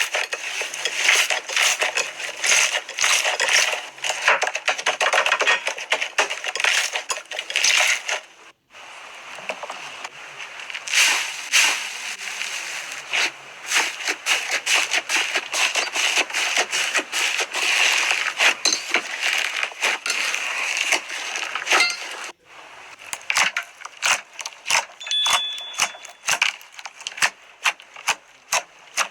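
Slime being squeezed and worked by hand, giving a dense run of crackling and popping clicks, with two brief silent breaks.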